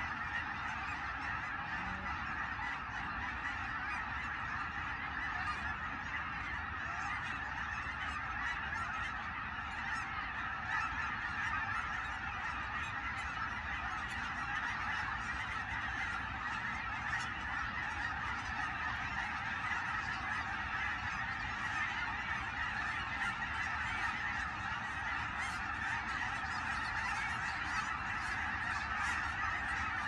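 A huge flock of snow geese calling in flight, a dense, steady chorus of overlapping honks.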